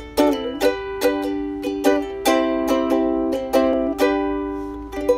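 Intro music of strummed chords on a plucked string instrument, about two to three strums a second, each ringing out and fading before the next.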